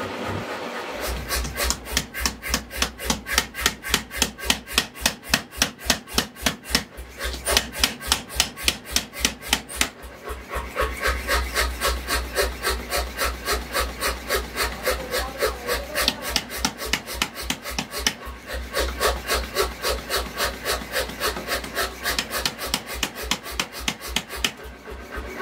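Power hammer pounding a red-hot steel blade: a fast, even run of blows, several a second, with two brief pauses, over the low hum of the machine.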